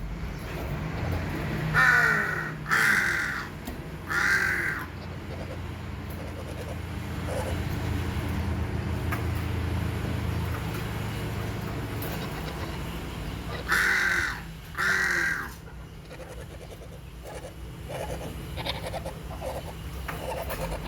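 A large bird's harsh, caw-like calls: three loud calls about a second apart near the start, then two more in a pair about ten seconds later, with fainter calls near the end.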